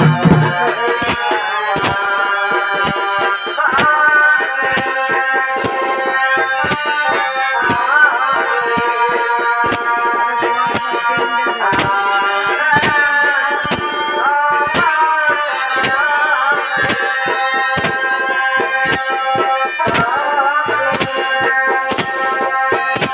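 Chhau dance music: a Casio keyboard playing a sustained melody with bending, sliding notes over steady, evenly spaced drum beats.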